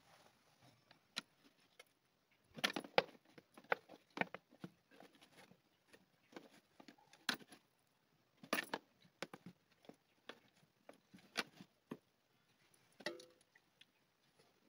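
Stainless-steel utensils clinking and knocking against each other: scattered sharp metallic clicks, with a few louder clusters.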